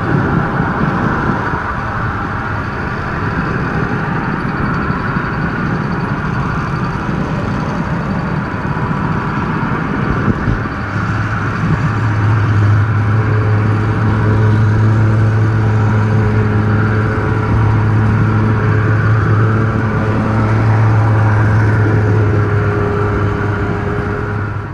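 Model subway train running along its track, carrying the camera: a steady run of motor, gear and wheel-on-rail noise. A single click comes about ten seconds in, and a strong low hum then joins it and holds to the end.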